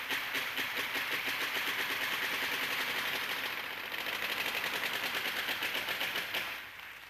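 Kabuki tsuke: wooden clappers beaten against a wooden board in a fast, even roll of sharp clacks, which thins out and fades near the end.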